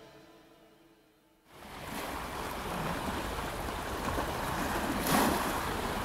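The last of the song fades out to near silence, then water waves wash in a steady rush, swelling briefly near the end.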